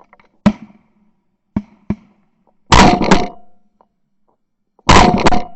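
Shotguns firing in two volleys, about three and five seconds in, each a quick cluster of several overlapping blasts. A few sharp knocks come before them in the first two seconds.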